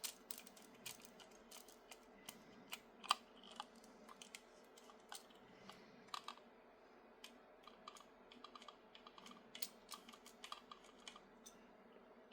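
Faint, irregular light clicks and taps of small 3D-printed plastic RC-car steering parts and screws being handled and fitted, the loudest about three seconds in.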